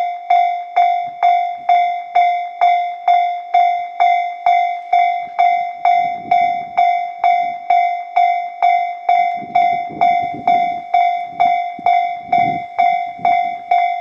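Railway level-crossing warning bell ringing: a steady ringing clang repeating a little over twice a second, each strike dying away quickly. A low rumble swells under it about six seconds in and again from about nine to thirteen seconds.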